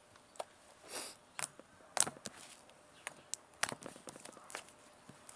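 Homemade slime being squeezed and handled, giving faint, scattered clicks and small pops. She says this one makes little noise and few clicks because an extra ingredient went in after it was finished.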